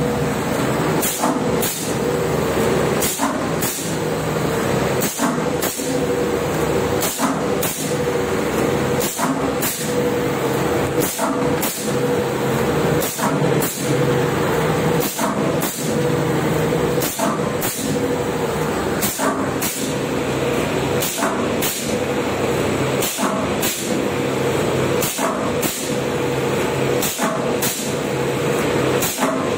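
Automatic cello tape slitting machine running: a steady mechanical hum with a held tone, overlaid by short sharp ticks about twice a second.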